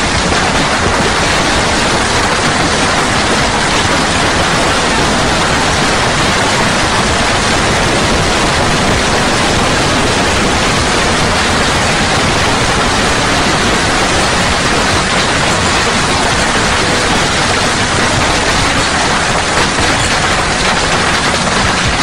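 Heavy hailstorm: hail and rain pelting down in a dense, steady rush of noise.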